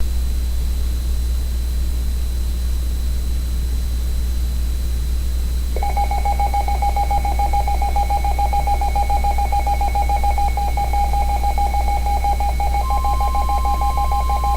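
Weather radio audio: a steady low hum and hiss, then about six seconds in a rapidly pulsing electronic alert tone starts and keeps going. Near the end a faint, higher steady tone joins it.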